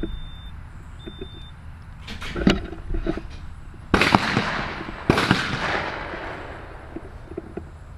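Two shots from a Browning Citori 12-gauge over-and-under shotgun, a little over a second apart, each trailing off in a long echo. A short knock of handling noise comes about a second before the first shot.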